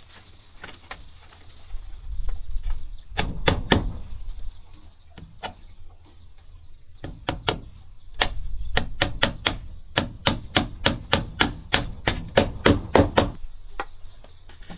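Hammering: a few hammer blows, then a steady run of about three to four blows a second that stops shortly before the end.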